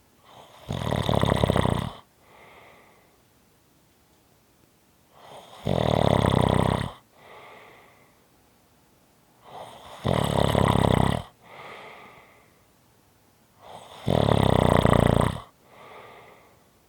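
A person snoring in a slow, regular rhythm: four loud snores about four seconds apart, each lasting a little over a second and followed by a fainter, shorter breath out.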